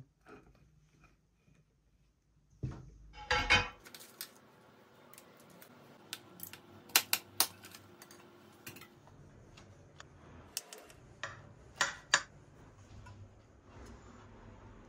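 Kitchen knife and plate clinking as a marble cake is cut, a scatter of sharp clicks and knocks, the loudest about 3 s in and around 7 and 12 s.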